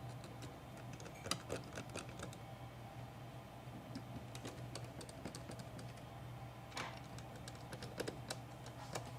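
Light, irregular clicks and taps of small laptop parts and tools being handled as a replacement cooling fan is fitted, over a faint steady low hum.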